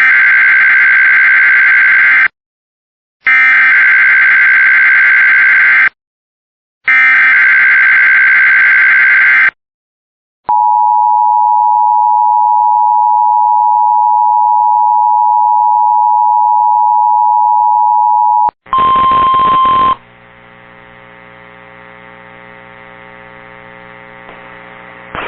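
Emergency Alert System test signal. Three bursts of the SAME digital header's shrill data tones, each about two seconds long with short silences between, are followed by the steady two-tone attention signal for about eight seconds. It ends with a brief loud single tone and then a faint steady hum.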